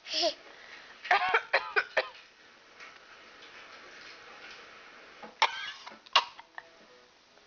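Short coughs from a woman and a baby of about nine and a half months who copies her, some with a voiced, sing-song edge. There is a quick cluster of about four a second in and two more near the end.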